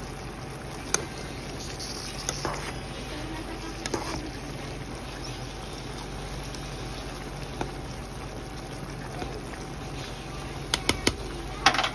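A spoon clinking now and then against a bowl of raw peppers and chopped vegetables, over a steady low hum. Near the end there is a quick run of sharper clicks and knocks.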